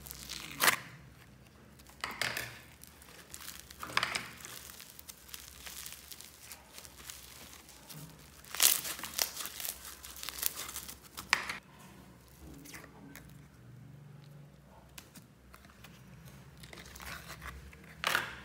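Hands pulling and squeezing slime, including yellow foam-bead floam: crackling, tearing squishes in scattered bursts, the loudest about nine seconds in.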